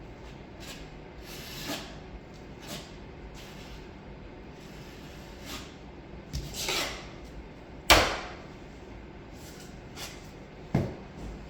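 Drywall knife working joint compound over a taped patch: scraping strokes across the wall and a few sharp knocks, the loudest about eight seconds in.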